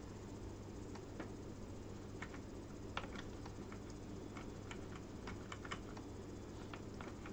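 Computer keyboard keys tapped in short, irregular runs of light clicks while text is edited, over a steady low hum.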